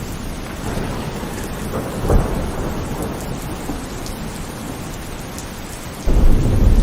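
Heavy rain falling with thunder: a short low thud about two seconds in, then a loud low rumble of thunder that sets in suddenly near the end.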